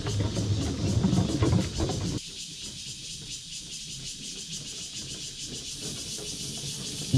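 Small-wheeled folding bicycle being ridden over a wooden boardwalk: a low rumble and rattle that cuts off abruptly about two seconds in, leaving a steady high hiss.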